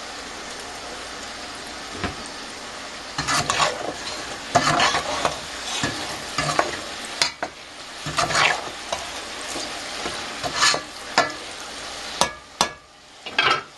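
Battered eggplant cubes sizzling steadily as they deep-fry in canola oil. From about three seconds in, a slotted utensil stirs them, scraping and knocking against the pot in a series of irregular strokes.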